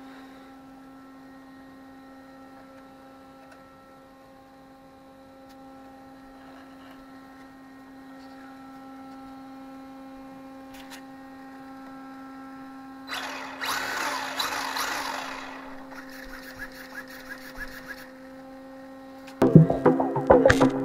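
Steady electrical hum made of several pitched tones. About 13 seconds in, a few seconds of hissing, rustling noise, then light ticks. Near the end, music with a wood-block beat starts abruptly and is the loudest sound.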